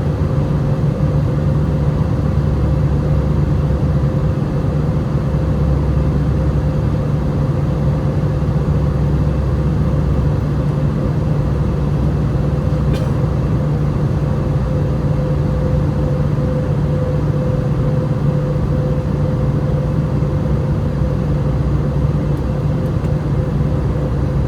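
Airbus A320 cabin noise in flight: a steady roar of the engines and airflow, with a deep rumble and a steady hum-like tone running through it that does not change.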